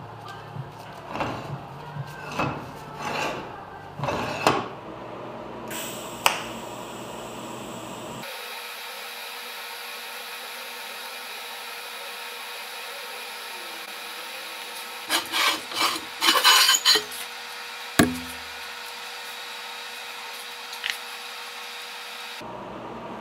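Steel plates of a homemade metal bender clanking and scraping as they are handled on a workbench, in a run of short knocks. After that comes the steady hiss and hum of a TIG welding arc, with a few short louder bursts partway through.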